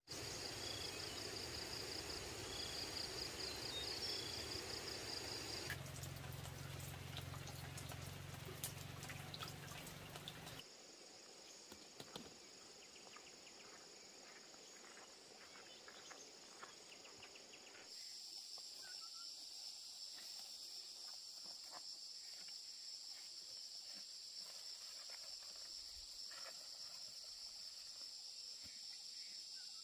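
Rural outdoor ambience led by insects chirring steadily in a high band. A low hum sits under it for a few seconds around the middle, and the background changes abruptly about 6, 11 and 18 seconds in.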